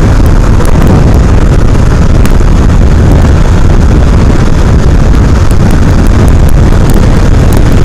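Wind buffeting the microphone on a moving motorcycle at highway speed, a loud steady rush with the bike's engine and road noise underneath.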